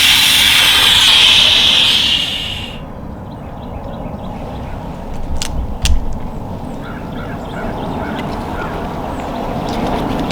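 A snort-wheeze, the aggressive call of a whitetail buck: a long hissing wheeze that cuts off abruptly about three seconds in. Two sharp snaps and a low thump follow near the middle.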